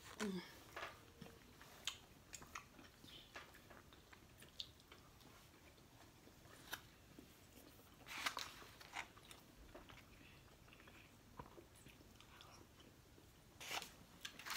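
Faint eating sounds close to the microphone: chewing and mouth noises with scattered small clicks of plastic forks in foam take-out containers, and a louder rustle around 8 seconds in and again near the end.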